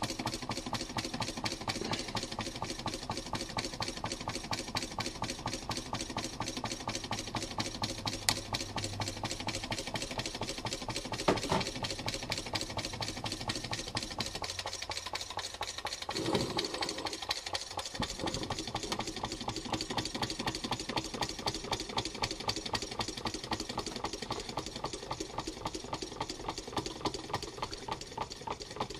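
Homemade Coke-can Stirling engine running, its moving parts making a rapid, even mechanical clatter. Two sharp knocks stand out partway through.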